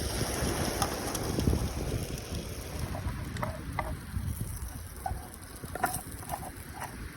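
Wind buffeting the microphone, strongest over the first few seconds, then easing; in the second half a series of short, faint high chirps or squeaks sounds over it.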